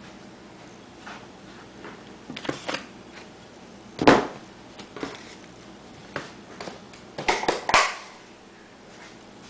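Kitchen handling noises: scattered knocks and clatters of things being moved and set down on a counter. The loudest knock comes about four seconds in, and a quick run of clicks and knocks comes near the end.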